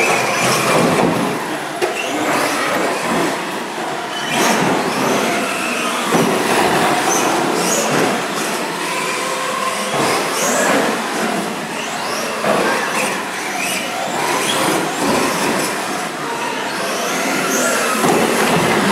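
Electric radio-controlled monster trucks running on an indoor carpet track: motor whine rising and falling with the throttle over tyre noise, with occasional knocks from jumps and landings.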